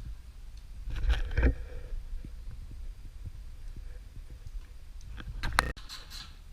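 Workshop handling noises: a wiring harness being laid and moved on a metal instrument panel carrier, rustling about a second in and a quick run of clicks and knocks near the end that stops abruptly, over a steady low hum.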